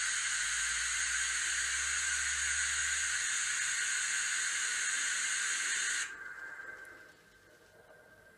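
Sound decoder in an N scale 2-6-0 model steam locomotive playing a steady steam hiss through its small speaker. The hiss cuts off sharply about six seconds in.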